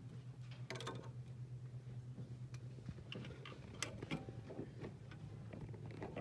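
Small metallic clicks and taps as a thermostat and engine parts are handled and fitted by hand into the thermostat housing, scattered and irregular, with a cluster about a second in and several more between three and four and a half seconds, over a steady low hum.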